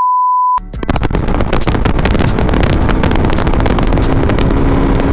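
A steady electronic beep, one pure high tone, cuts off sharply about half a second in. It is followed by loud wind buffeting the microphone and the running noise of a moving motorcycle.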